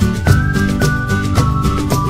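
Background music with a steady beat and a melody of held notes.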